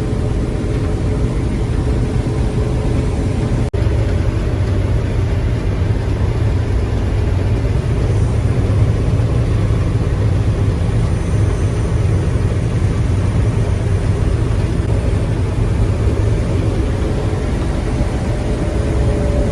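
Combine harvester running steadily, heard from inside the cab: a constant low engine drone with a steady hum over it, broken by a momentary dropout a few seconds in.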